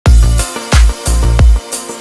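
Background music with a heavy, regular bass beat and bright cymbal-like hits, about three beats in the two seconds.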